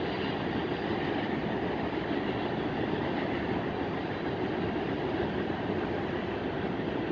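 Freight train cars rolling past: a steady, low rolling noise of steel wheels on rail.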